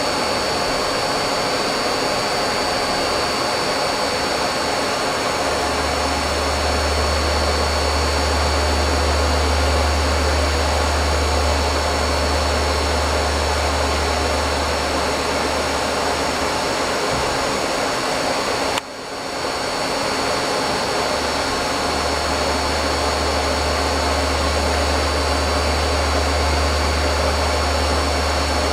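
Akira-Seiki Performa V4 CNC vertical machining center running, a steady mechanical noise with a constant high whine and a low hum that comes and goes. The sound briefly drops out about two-thirds of the way through, then returns.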